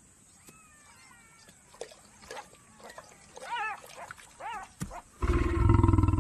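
Lioness giving a deep, rasping warning growl of about a second near the end, the loudest sound, at a scavenging jackal closing in on her kill. Before it come a few short, higher calls that rise and fall in pitch.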